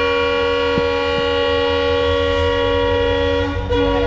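Train horn sounding one long, steady blast of several tones together, breaking into short toots about three and a half seconds in, over the low rumble of the train pulling out of the station: the departure signal.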